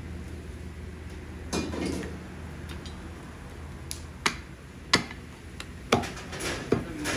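Butcher's blade chopping mutton: a handful of sharp, irregular knocks, most of them in the second half, over a steady low hum.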